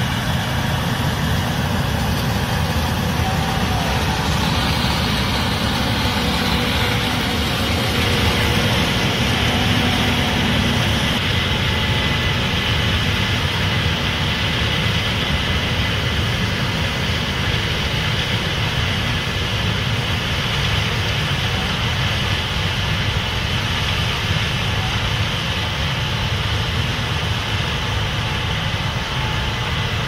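Case IH 8250 combine harvesting corn with a 12-row Geringhoff corn head: a steady, loud drone of engine and threshing machinery under load, with a high hiss over it. It is loudest about a third of the way in as the machine passes close by.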